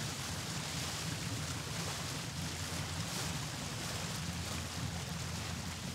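Boat under way on water: a steady rush of water with a low hum beneath it.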